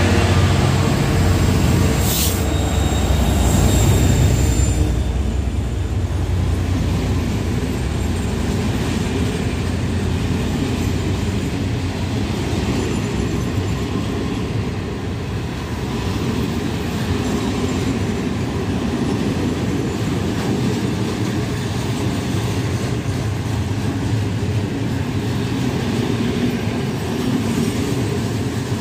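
Freight train passing close by. The diesel engines of a Class 66 and a TEM2 locomotive run loudly for the first five seconds or so, with a brief high wheel squeal, then a long train of open coal wagons rolls past with a steady noise of wheels on rail.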